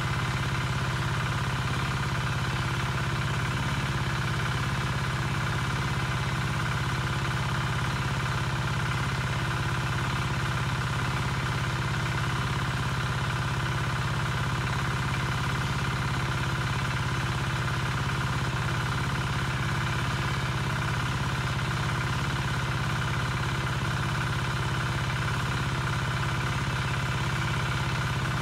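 A motor or engine running steadily at constant speed: an unchanging low hum with a higher whine above it.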